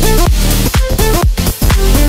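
Electronic dance music with a steady kick-drum beat, about two beats a second, and synth notes over it.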